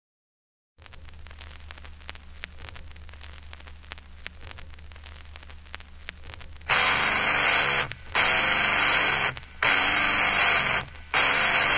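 A low electrical hum with faint crackling, then loud bursts of harsh static-like noise, each lasting about a second and cutting out briefly between them.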